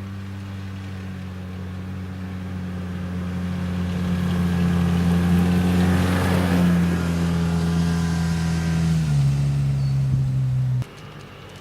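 Utility side-by-side (UTV) driving past at about 25 mph: a steady engine drone that grows louder toward the middle as it comes by. Its note drops about nine seconds in, and the sound cuts off abruptly near the end.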